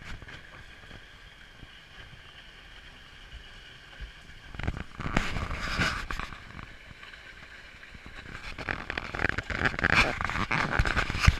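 Wooden runners of a Monte wicker toboggan scraping over asphalt as it slides downhill: a steady rasp with a faint whine, getting louder and rougher with scattered knocks about five seconds in and again over the last three seconds.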